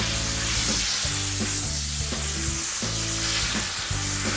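Steady hiss of a Cold Jet dry ice blaster blasting dry ice pellets at an aircraft propeller blade to strip the grime, with background music and its bass line underneath.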